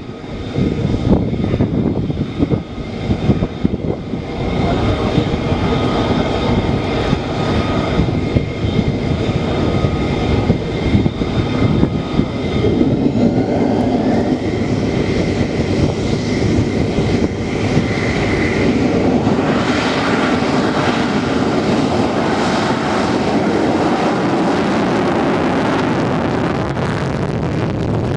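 Lockheed Martin F-35B Lightning II's F135 afterburning turbofan at high power on departure: a loud, continuous jet roar with whining tones riding over it.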